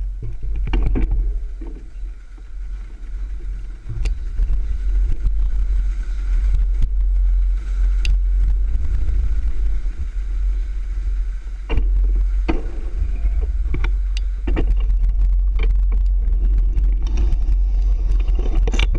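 Low, steady rumble of wind and handling noise on a bicycle's handlebar-mounted action camera, with scattered knocks and rattles from the bicycle as it rolls over bumps and thresholds.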